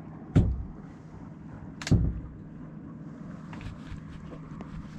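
Two shotgun shots about a second and a half apart, each a sharp blast with a short low boom trailing after it, over a steady low hum and wind noise.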